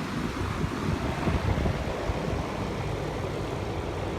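Steady, low rumbling background noise.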